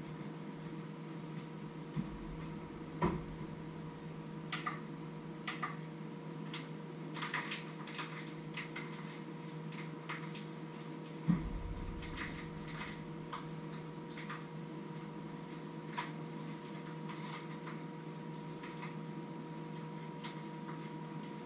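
Kitchen handling sounds: light clinks, taps and knocks of utensils and pots being worked at a counter, over a steady low hum. A few heavier thumps stand out, the loudest about eleven seconds in.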